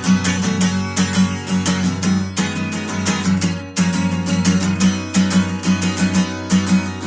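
Instrumental passage of a song: strummed guitar over a sustained bass line, with evenly repeating strokes keeping a steady beat.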